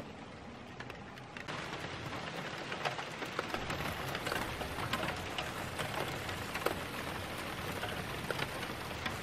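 Rain falling, a steady patter with scattered louder drops; it grows louder about a second and a half in.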